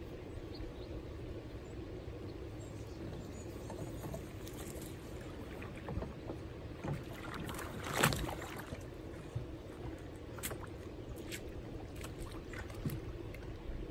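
A Native Titan 10.5 kayak on Boonedox wheeled landing gear being rolled down a grassy bank into shallow water. Its hull and gear give a few short knocks and water sounds, the loudest a sharp bump about eight seconds in.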